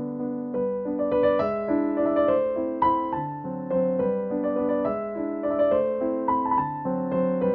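Background piano music: a melody of single notes over held lower chords, steady throughout.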